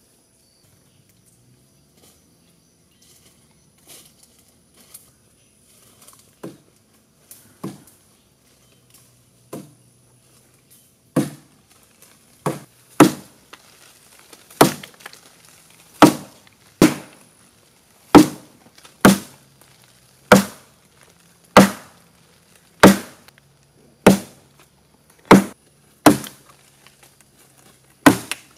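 A blade chopping into a tree branch: sharp woody strikes, a few faint and widely spaced at first, then louder and steady at about one a second from a third of the way in.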